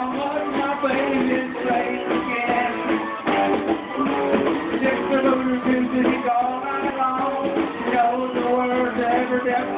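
A live band playing rock music, with guitar prominent. The recording is dull, with no treble above the upper mids.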